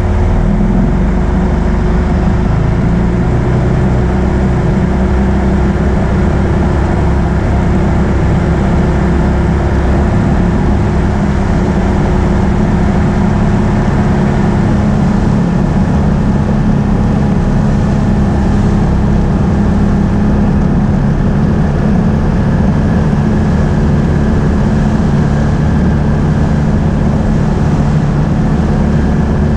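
Can-Am Outlander ATV engine running steadily as the ATV is ridden, with a slight shift in engine pitch about halfway through.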